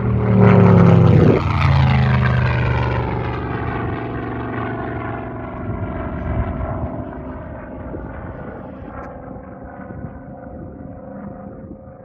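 Stewart S-51D Mustang replica's Chevy V-8 engine and propeller in a loud low flyby. The engine's pitch drops sharply as the plane passes, about a second in, then the sound fades steadily as it climbs away.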